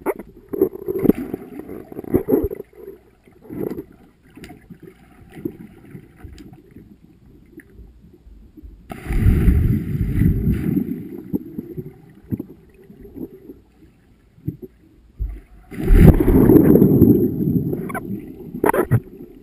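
Muffled underwater sound heard through a camera's waterproof housing on a pool bottom: faint knocks and water movement, then two loud rushing plunges of bubbles as swimmers dive in close by, about nine seconds in and again near the end.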